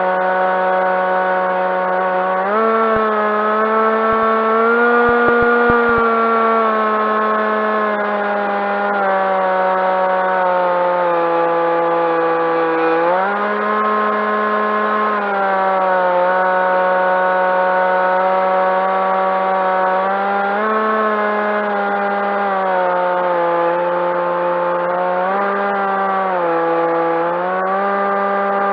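Electric motor and propeller of a Skywalker FPV plane in flight: a steady, loud buzzing drone whose pitch steps up and down several times as the throttle is raised and eased off.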